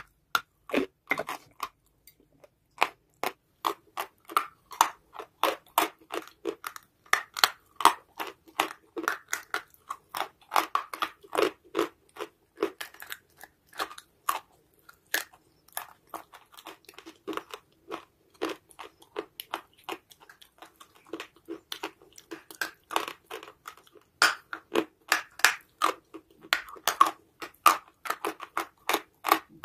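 Close-up crunching and chewing of dry white chalky clay: sharp, crisp bites and crunches a few times a second, without pause.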